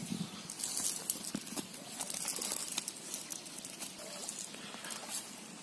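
A nylon cast net and grass rustling and crackling as caught fish are picked out of the mesh by hand: an irregular run of small crackles and taps.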